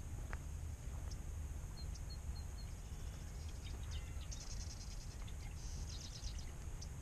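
Birds calling outdoors: a run of four short, high chirps, then two quick, high trills, over a steady low rumble.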